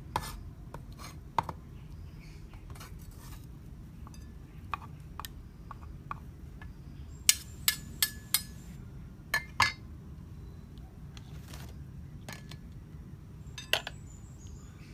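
Kitchen utensils clinking against dishes in scattered sharp strikes: a quick run of four about halfway through, two more soon after, and one near the end, over a steady low background noise.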